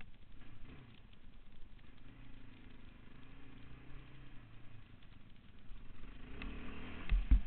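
Yamaha Raptor 660 quad's single-cylinder engine running as the quad is ridden along a dirt trail, getting louder near the end, with a sharp knock shortly before it ends.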